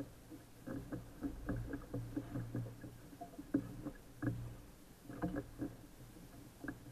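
Irregular knocks, creaks and thumps on a small fishing boat over a low rumble, as an angler shifts about fighting a hooked fish on a bent rod.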